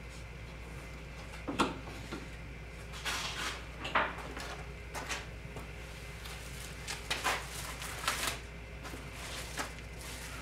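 Scattered knocks, clicks and rustles of hands handling a kayak trolling motor mount and picking up a hand tool, over a steady low hum.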